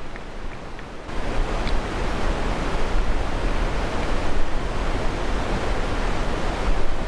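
Wind buffeting the camera's microphone: a steady rushing noise with a heavy low rumble that comes in abruptly about a second in, with a few faint ticks just before it.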